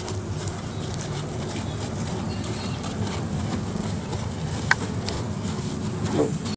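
Horse's hooves stepping through soft sand arena footing, quiet and irregular, over a steady outdoor rumble. A single short bird chirp about two thirds of the way through.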